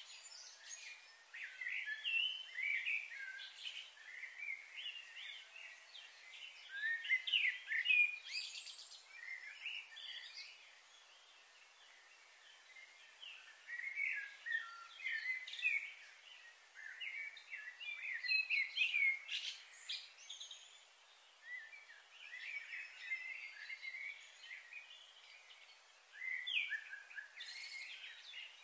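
Small birds chirping and twittering in quick, overlapping calls, with short pauses between flurries.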